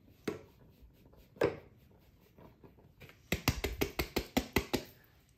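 Hand tapping an upturned plastic mixing bowl to knock the last of the bread flour out into a bread machine pan. There are two single knocks, then near the end a quick run of about ten taps, roughly six a second.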